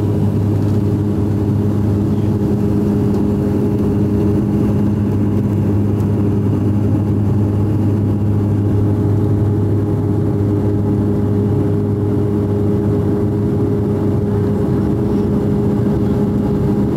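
Cabin noise of a Bombardier Dash 8 Q400 turboprop climbing out after takeoff: a loud, steady propeller drone with a strong low hum and evenly stacked tones above it, over a haze of engine and air noise.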